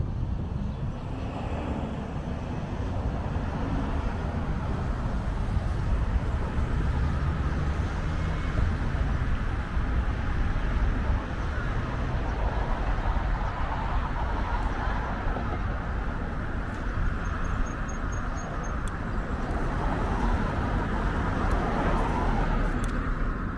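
Road traffic on a busy city avenue, cars passing now and then, heard over a steady low wind rumble on the microphone of a moving bicycle.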